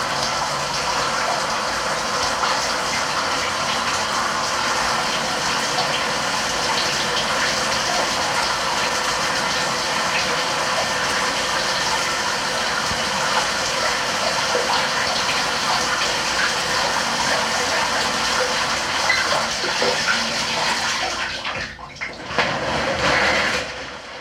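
Shower spray running steadily onto a surface. It thins out about two seconds before the end, surges briefly, then stops.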